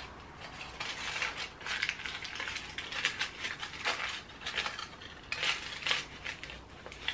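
Aluminium foil strip crinkling and crackling as gloved hands fold and crease it up around a section of hair, in a series of short irregular bursts.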